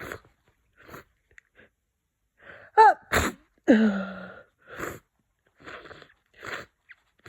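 Congested sneeze from a person with a head cold, about three seconds in: a pitched intake that falls in pitch, a sharp burst, then a voiced sound falling in pitch. Short sniffs come before it and several more after it.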